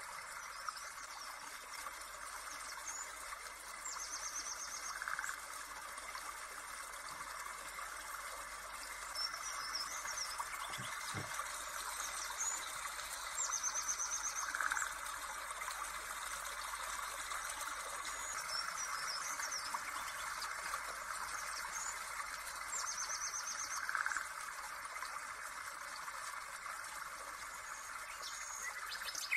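Birdsong ambience of high chirps and short trills over a steady hiss, the same calls coming back about every nine to ten seconds as a repeating loop. There is a single soft thump about eleven seconds in.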